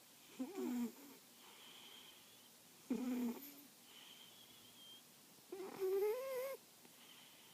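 Snoring: three loud, rasping pitched snores about two and a half seconds apart, with a faint high whistle on the quieter breaths between them.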